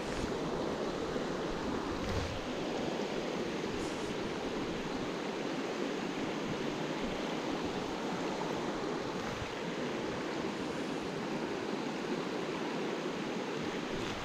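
Shallow rocky trout stream running over stones, a steady rush of water.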